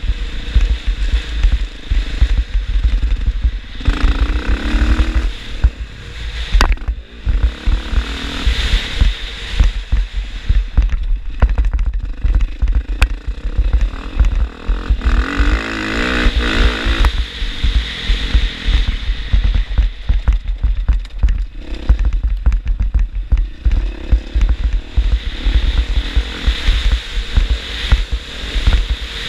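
KTM dirt bike engine running and revving while riding, under heavy wind buffeting on a helmet-mounted camera.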